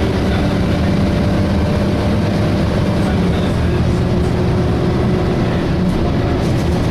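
A DAF SB220 single-decker bus under way, heard from inside: the diesel engine and Voith automatic gearbox running steadily, with the hoovering drone of the engine's cooling fan. Its steady tones shift slightly in pitch about halfway through.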